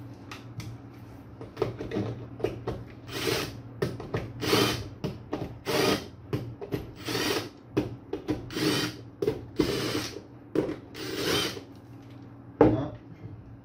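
Cordless electric screwdriver running in a dozen or so short bursts, driving the terminal screws of miniature circuit breakers. A sharp click comes near the end.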